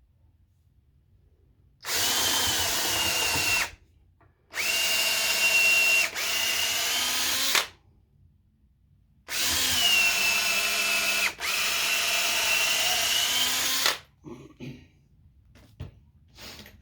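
Power drill boring pilot holes into wood for lag screws, run three times in steady whining stretches, the second and third each briefly interrupted. A few light clicks follow near the end.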